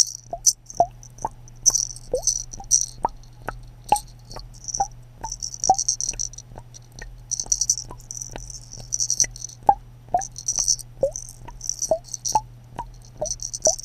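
Quick plinking drops, about two to three a second, some with a short rising pitch, over bursts of high rattling and a low steady hum.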